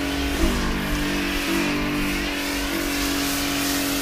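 Kärcher K5 electric pressure washer running with a steady motor hum, under the hiss of its snow foam lance spraying foam.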